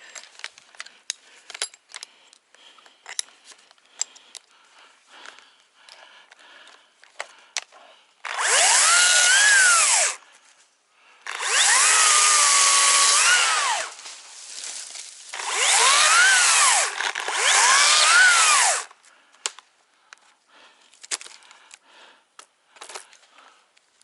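Two-stroke chainsaw revved up in three bursts of a few seconds each, cutting wood, its pitch rising and falling with each cut. Scattered clicks and rustling come before the first burst.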